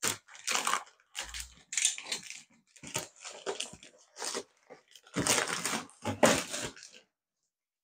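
Parcel packaging being torn open and handled: a run of irregular crinkling, crunching and tearing sounds that stops about seven seconds in.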